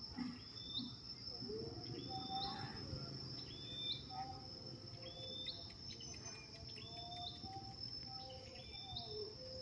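Outdoor ambience: a steady high-pitched insect drone, with a bird repeating a short rising call about once a second over a low rumble.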